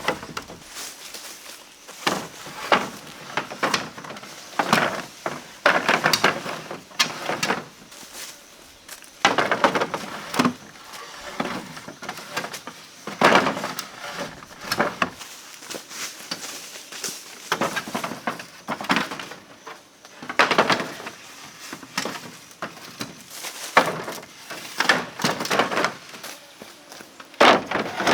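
Bamboo and wood being worked by hand: irregular clusters of knocks, cracks and scraping, one every one to three seconds.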